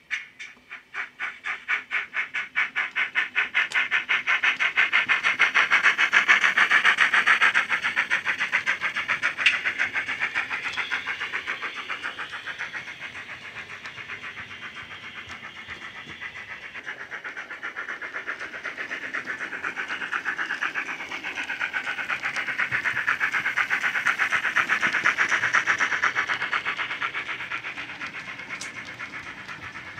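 Steam exhaust chuffs from a DCC sound decoder in a Hornby model of a GWR 42XX/52XX 2-8-0 tank locomotive, played through a small speaker. The chuffs start slowly and quicken into a fast, even beat as the engine gets under way, growing louder twice as it runs past.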